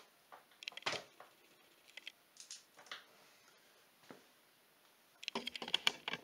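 Scattered metallic clicks and clinks of a hand wrench working a bolt on an ATV. A louder knock comes about a second in, and a quick run of clicks and rattles comes near the end.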